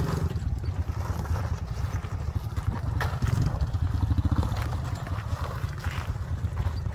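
Small single-cylinder four-stroke engine of a Honda Astrea underbone motorcycle running in low gear at a crawl, a fast steady putt-putt, a little harder around the middle, with a few sharp knocks from the wheels on loose lava rock.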